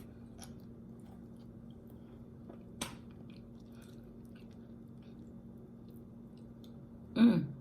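A person chewing food close to the microphone, with soft mouth clicks, a sharper click about three seconds in, and a brief falling hum-like mouth sound near the end, over a steady low background hum.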